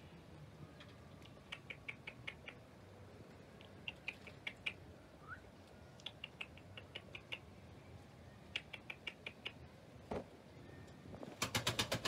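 Chukar partridges calling: four runs of short, quick notes, about five a second, with a pause of a couple of seconds between runs. A louder rapid rattle of clicks comes near the end.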